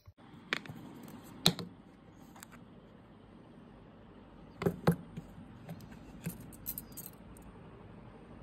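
Silver bangles clinking lightly against each other and the jewellery box as they are handled and lifted out: scattered sharp clicks, the loudest about a second and a half in and a quick pair near the middle, with a few softer ones after.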